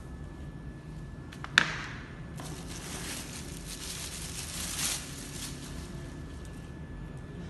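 Handling noise: one sharp tap about one and a half seconds in, then a few seconds of rustling that swells briefly before fading.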